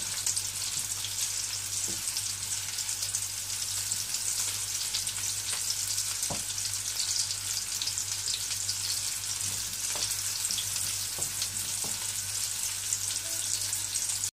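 Batter-coated mushrooms sizzling steadily as they shallow-fry in hot oil in a nonstick wok, stirred with a wooden spatula that knocks lightly on the pan a few times. A steady low hum runs underneath.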